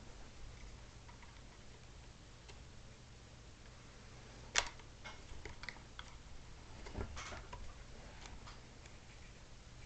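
Faint clicks and taps of a hobby-grade RC car shock absorber being lined up and fitted into its plastic suspension rocker, with one sharper click about four and a half seconds in and a few more around seven seconds.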